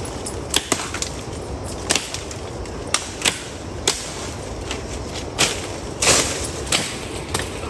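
Irregular sharp cracks and knocks of dry wood being cut or broken for firewood, about a dozen in all, with a few short rustles among them.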